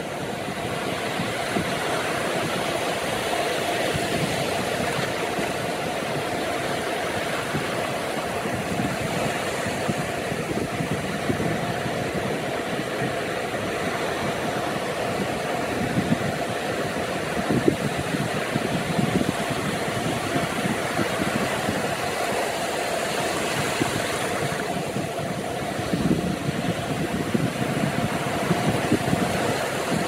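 Atlantic surf breaking and washing up a sandy beach in a steady rush, with louder surges around the middle and near the end as waves break close in.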